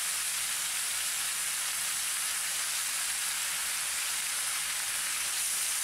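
Star fruit pieces sizzling steadily in hot coconut oil in a pot on the stove.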